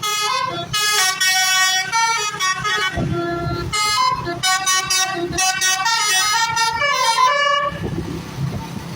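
Basuri 'telolet' bus horn playing a quick tune of changing notes. Near the end the horn stops and a noisy rumble is left.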